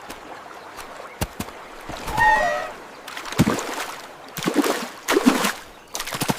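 Water splashing and sloshing, with several louder splashes, and a brief warbling squeak about two seconds in.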